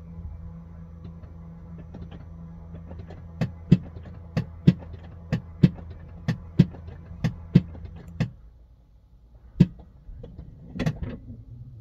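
NIO battery swap station machinery removing the old battery from beneath the car, heard from inside the cabin. A steady low machine hum carries a run of sharp clicks in quick pairs, about one pair a second. The clicks and the hum stop together about eight seconds in, and a lone click and a short clatter come near the end.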